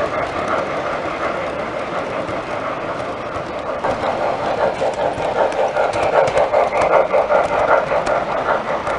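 O-scale model train running on three-rail track: a steady rolling rumble with fast rhythmic clicking of the wheels, louder in the second half as the yellow passenger cars pass close by.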